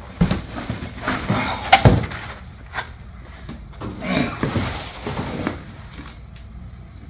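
Cardboard box and foam packing scraping and rustling as a tyred hub-motor wheel is pulled out, with a sharp thump a little under two seconds in. A second bout of scraping and handling follows about four seconds in as the wheel is set on the floor.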